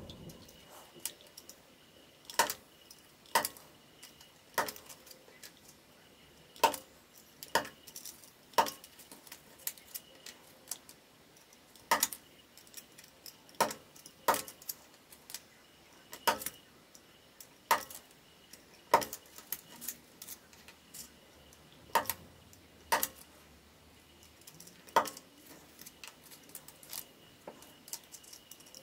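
Utility knife cutting plastic window frames off a model kit's sprue: sharp clicks and snaps as the plastic gives way, about one a second at irregular spacing, some in quick pairs.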